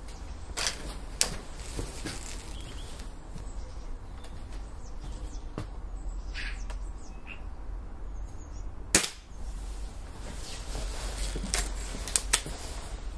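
A Gamo Whisper break-barrel air rifle fires a single sharp shot about nine seconds in. About two and a half seconds later come several metallic clicks as the barrel is broken open to re-cock, with a couple of fainter handling clicks in the first second or so.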